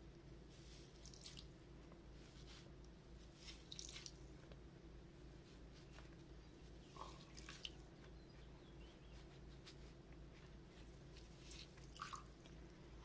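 Faint, scattered wet drips and small squishes as a sponge is pressed on the screen of a papermaking mould to soak water out of a freshly formed sheet of recycled-paper pulp.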